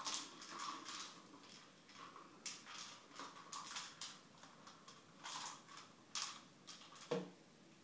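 Plastic cat treat ball being batted and rolled across a tiled floor, knocking and rattling in irregular clicks, with one louder knock near the end.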